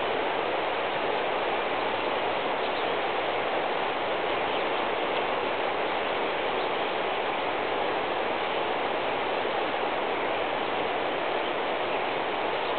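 Floodwater rushing steadily across a pasture, an even hiss of moving water.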